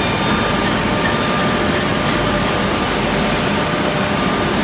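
CNC mortise-and-tenon machine running, its router spindle machining the end of a clamped wooden rail: a steady rushing machine noise with faint steady tones.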